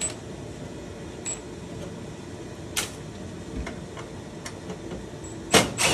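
Scattered sharp clicks and taps from a screwdriver and stovetop parts as a screw is worked out: a few light ones, then two loud clicks close together near the end.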